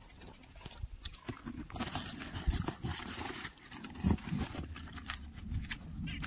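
Irregular rustling, scuffs and light taps from fried puris being handled over an open cardboard box and handed to gray langur monkeys, busiest in the middle.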